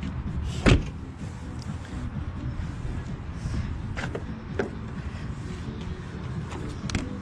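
Steady low rumble of outdoor street background, with one sharp knock about a second in and a few fainter clicks later.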